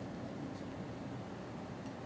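Quiet kitchen room tone: a steady low hum, with two faint light ticks as steel tweezers set truffle slices into small metal moulds.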